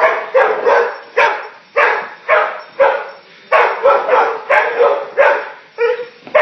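Dog barking over and over, sharp barks at about two a second.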